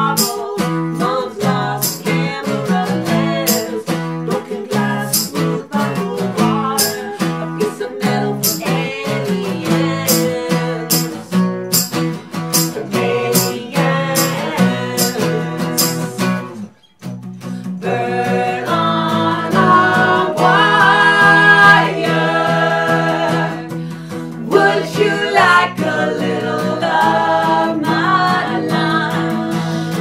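Small band playing a cheerful pop-rock song live: strummed acoustic guitars, a tambourine struck on the beat, and several voices singing. The music stops for a moment a little past halfway, then comes back with the voices louder.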